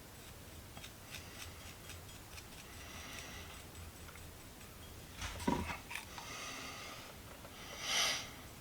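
Faint handling noises at a workbench: light scattered clicks and rubbing, a louder knock about five and a half seconds in, and a short breathy swish near the end.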